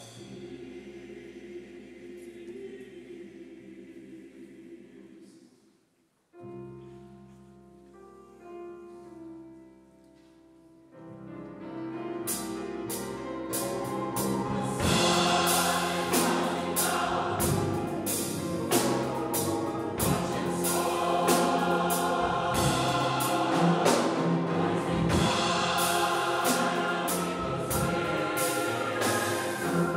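Massed gospel choir singing with piano, bass guitar and drum kit. A soft passage is followed by a brief break about six seconds in, then the full choir and band come in loud with drums from a little before halfway.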